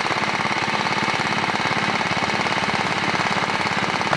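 Engine running steadily with a fast, even knocking beat.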